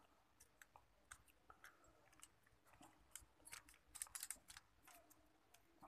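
Faint, scattered plastic clicks and rattles as hands handle and open a desktop CPU cooler with push-pin clips, with a cluster of louder clicks about four seconds in.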